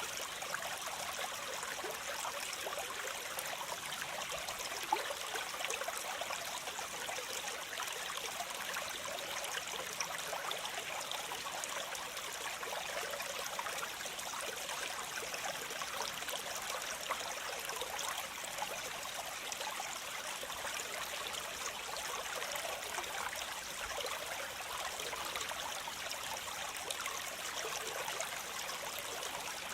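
Waterfall, water cascading and splashing in a steady, hissy rush with little deep rumble. A single brief click stands out about five seconds in.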